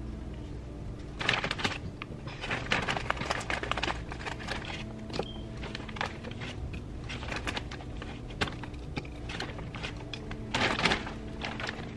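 A plastic bag of frozen strawberries crinkling as the pieces are tipped out and clatter into a plastic blender cup: an irregular run of rustles and clicks, loudest near the end.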